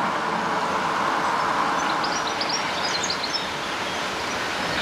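Steady rushing of floodwater running across and beside the road, with a few bird chirps about two to three seconds in.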